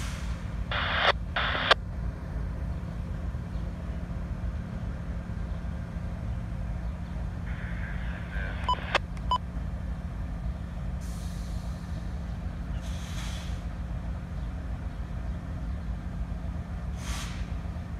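Diesel locomotives idling: a steady low drone with a constant hum. Two short, sharp hisses of air come about a second in, a few clicks follow mid-way, and fainter air hisses come later.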